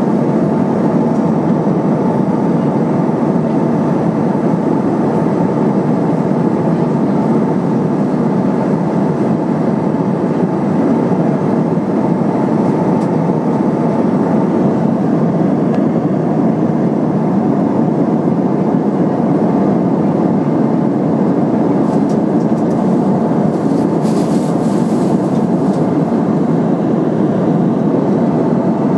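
Steady cabin noise of an Airbus A320-232 in cruise, heard inside the cabin: a constant rush of airflow over the fuselage blended with the hum of its IAE V2500 turbofan engines.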